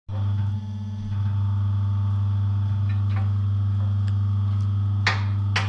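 Steady low machine hum with even overtones, with a few sharp clicks near the end.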